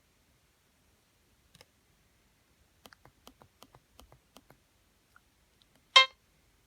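Faint clicking: a click or two, then a quick run of about ten, and one much louder click near the end.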